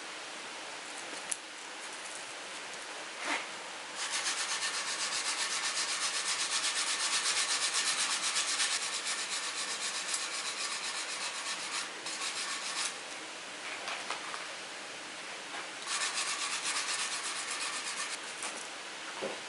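The steel blade of a freshly quenched homemade hook tool being rubbed by hand with an abrasive, in quick, even back-and-forth scratchy strokes that clean the quench scale off the steel. The strokes come in a long bout from about four seconds in, then a shorter one near the end, with a couple of small knocks before they start.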